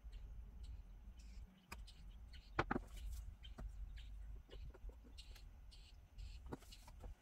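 Faint handling sounds of plastic nail forms, a brush bottle and tweezers: small clicks, taps and short rustles over a low steady hum, with one sharper click about two and a half seconds in.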